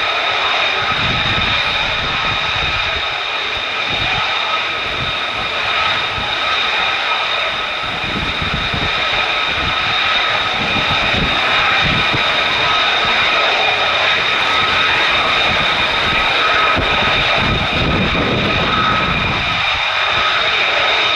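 Jet engines of F-35A Lightnings running steadily: a constant high whine in several pitches over a broad rush.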